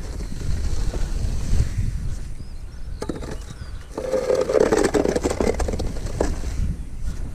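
Steel shovel scraping and sliding wet mortar along the top of a course of concrete foundation blocks, in a few strokes, loudest about four to five and a half seconds in, over a steady low rumble.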